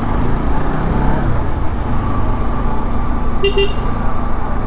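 Motorcycle running at low speed through street traffic, a steady low rumble. A short high-pitched horn toot sounds about three and a half seconds in.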